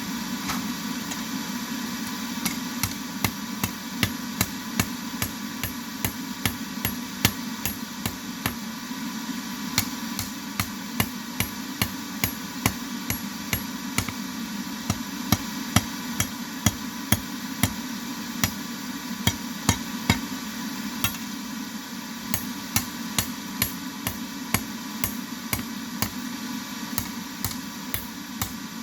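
Forging hammer striking metal on an anvil, sharp ringing blows about two a second in runs with short pauses. A steady low hum runs underneath.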